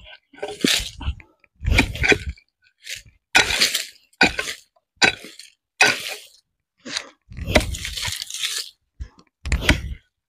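Pickaxe striking hard, compacted soil, about one blow a second. Each blow is a sharp crunching impact as the tool breaks into the packed earth, which is hard on top.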